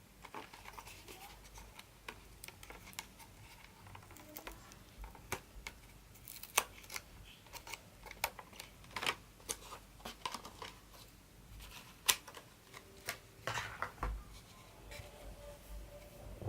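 Hard plastic phone case being handled at close range: scattered, irregular light clicks and taps.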